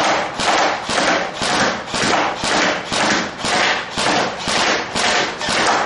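Ratcheting whirr of an airsoft high-capacity magazine's winding wheel being thumbed round in even strokes, about two a second, to wind the spring that feeds BBs up to the gun.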